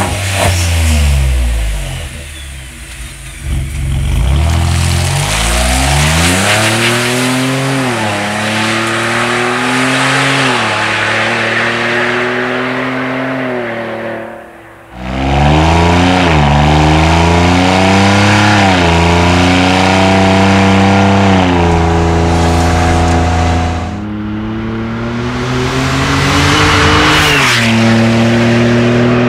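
Ford F-150 Tremor's 3.5L EcoBoost twin-turbo V6 through a Borla ATAK exhaust, accelerating hard. The pitch climbs and falls back several times as it goes up through the gears. After a brief dip a second run starts, loud and climbing and shifting again.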